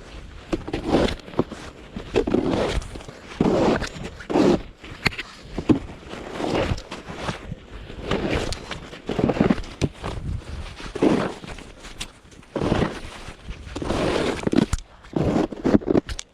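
Snow crunching in irregular strokes, roughly one a second, with no engine running.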